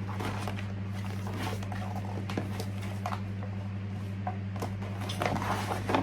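Steady low hum with a few faint clicks and light rustling.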